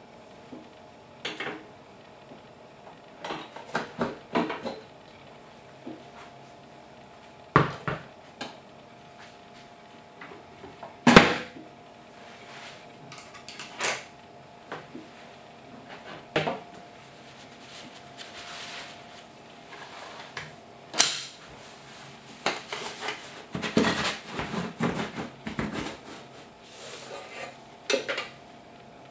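Metal bread-maker baking pan knocking and clattering as it is lifted out of the machine, set down and handled to turn out the baked loaf. Scattered single knocks, the loudest about eleven seconds in, with a busier run of clatter late on.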